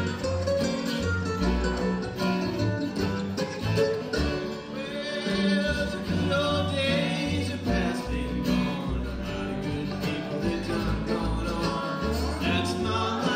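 Live bluegrass string band playing: banjo, mandolin, acoustic guitar, dobro and upright bass, with a voice singing over them.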